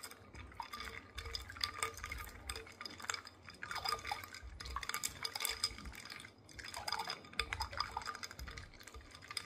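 A spoon stirring milk, ice cubes and watermelon chunks in a glass bowl: liquid sloshing with irregular clinks against the glass, with a brief pause about six seconds in.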